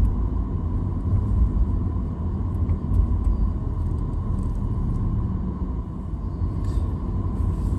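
Steady low rumble of a car driving at road speed, heard inside the cabin: engine and tyre noise.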